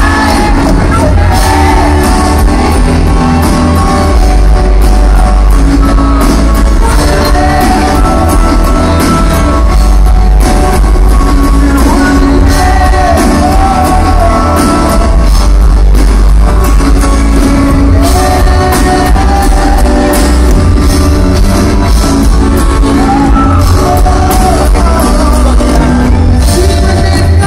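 Loud live music over a concert PA, heard from within the audience: a heavy, booming bass beat with a singer's voice over it.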